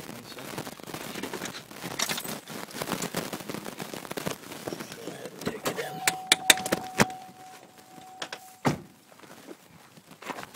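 Someone getting out of a car: handling noise, keys jangling and sharp clicks, then a steady warning tone from the car that stops as the door shuts with a thud a couple of seconds before the end.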